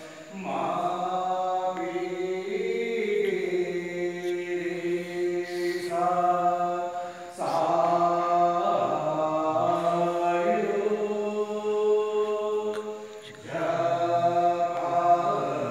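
Hindu devotional chanting for the aarti, sung in long held phrases that break off briefly twice.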